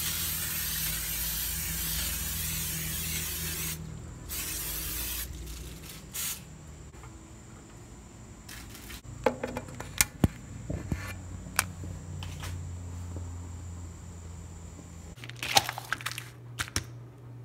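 Aerosol cooking spray hissing onto gas-grill grates in one long burst of about four seconds and then a shorter one. About ten seconds in come a few sharp clicks at the Weber grill's burner control knob. Near the end a plastic-wrapped package of chicken cutlets crinkles as it is handled.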